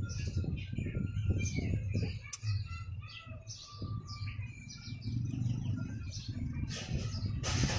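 Birds chirping repeatedly, many short quick calls, over a steady low hum, with a short burst of noise near the end.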